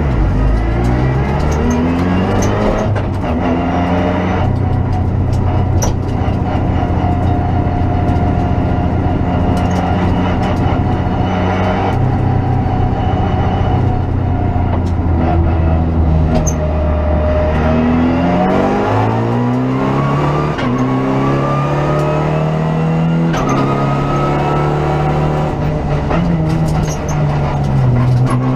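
Renault Clio Rally5 rally car's turbocharged 1.3-litre four-cylinder engine, heard from inside the cabin, held at high revs on the throttle for a long stretch. Near the end the revs drop and then climb again in several rising sweeps through the gears, with occasional sharp clicks.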